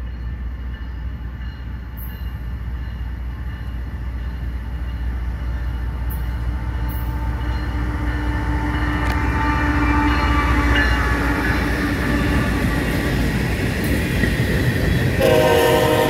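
CSX freight train approaching and passing close by: diesel locomotive engine rumble and rail noise build in loudness as the lead locomotives go past about halfway through, followed by empty grain hopper cars rolling by. A short, loud cluster of steady tones sounds near the end.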